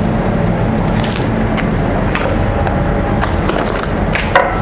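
Steady low hum of restaurant-kitchen ventilation. Over it are light taps and crinkles from handling a plastic tub and its film cover, and a short ringing clink near the end.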